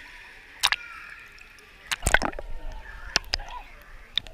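Pool water splashing and lapping against a GoPro camera's housing held at the water line, in a series of sharp splashes. The loudest cluster comes about two seconds in.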